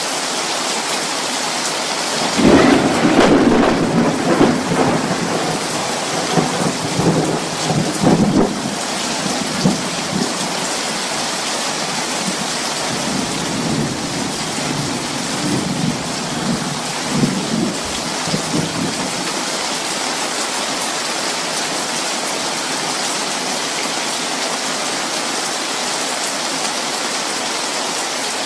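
Steady heavy rain with thunder: a loud clap about two seconds in rolls and rumbles for several seconds, and a softer roll of thunder follows midway.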